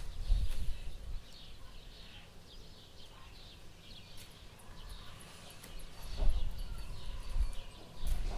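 Kittens clambering in a wicker basket: claws scratching and catching on the woven wicker in quick light scrapes and clicks, with dull bumps as the basket is knocked, once at the start and again about six seconds in.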